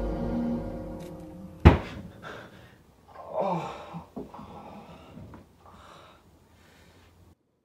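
Eerie music fades out, then a single sharp hit sounds about two seconds in. A person follows with heavy, shaky breaths and a gasp as he jolts awake. The sound cuts off abruptly near the end.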